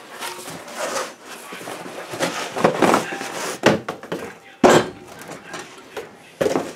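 Cardboard box rustling and scraping as a red CO2 fire extinguisher is pulled out of it, followed by three sharp knocks, the loudest a little past the middle, as the metal cylinder is handled.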